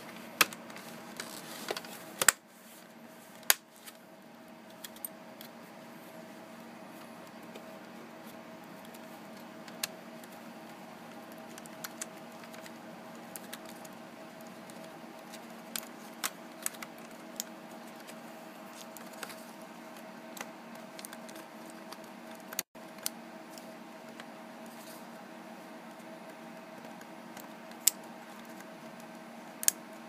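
Scattered sharp clicks and taps of laptop casing and internal parts being handled and fitted back together, a few louder ones in the first few seconds and near the end, over a steady faint hum.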